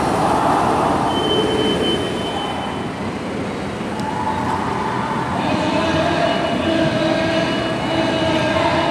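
Slow-moving convoy of police vans, patrol cars and a police motorcycle driving past: a steady wash of engine and tyre noise, with a steady pitched hum and whine coming in about halfway through.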